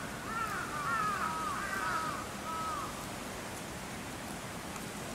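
Crow cawing: a quick run of about six arched calls in the first three seconds, the last one held flat. A steady outdoor hiss underlies it.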